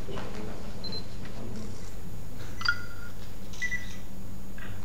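Steady low hum of room tone with a few short, faint electronic beeps and one small click about two and a half seconds in.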